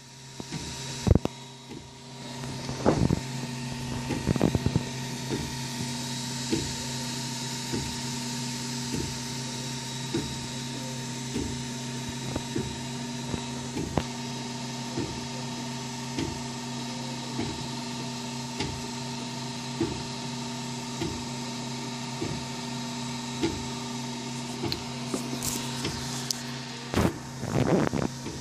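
Wanhao Duplicator 4 3D printer running a print: a steady hum from its extruder cooling fans and stepper motors, with a soft regular tick a little more than once a second as the head moves back and forth. A few louder knocks come in the first few seconds and again near the end.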